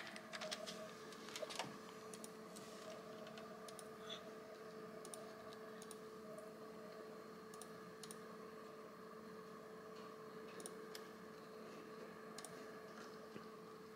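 Quiet hospital room tone: a steady, faint electrical hum with scattered light clicks.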